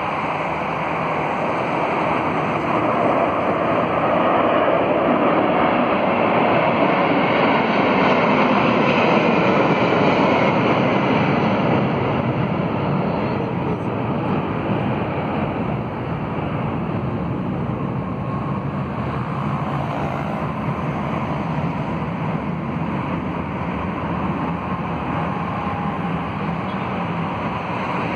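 A Boeing 747-400's four jet engines at takeoff power as the airliner climbs out and passes overhead: a loud, rushing roar. It builds to its peak in the first ten seconds, then eases a little as the jet recedes.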